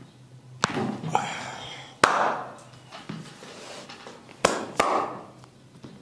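Sharp percussive strikes on the body during a massage, about five at uneven intervals, each fading out over roughly half a second.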